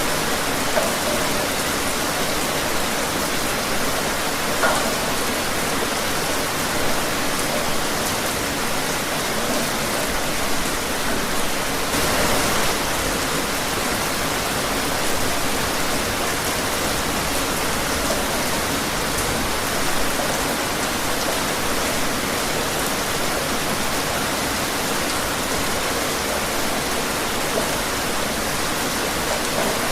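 Steady rain falling: an even hiss of many drops, with a few louder drops standing out now and then.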